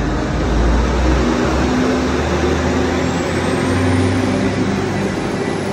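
Transport for Wales diesel multiple unit moving past along the platform: a steady diesel engine drone with wheel and rail noise.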